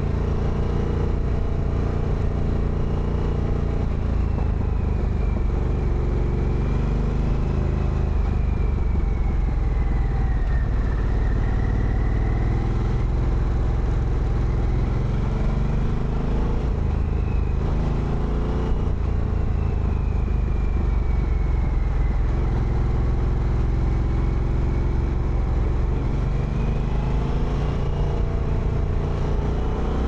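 Harley-Davidson Sportster V-twin engine running while the motorcycle is ridden, its pitch rising and falling several times as the rider speeds up and eases off.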